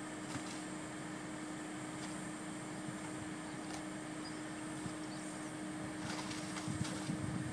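A vehicle's engine idling steadily, a constant hum under a faint hiss; near the end wind starts buffeting the microphone.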